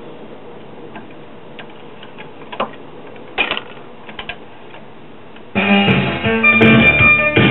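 Record changer of a 1965 Magnavox console stereo cycling between 45s: a quiet stretch with a few light clicks and clunks as the changer drops the next record and sets the tonearm down. Music from the new record starts on the console's speakers about five and a half seconds in.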